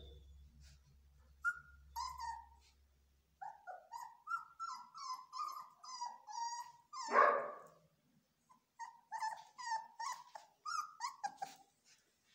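Belgian Malinois puppies whining and yelping: runs of short, high cries, about three a second, with a louder, harsher cry about seven seconds in.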